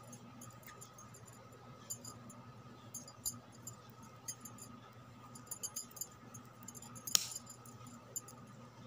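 Knitting needles clicking lightly against each other as stitches are worked, in small irregular clicks with one sharper click about seven seconds in, over a faint steady hum.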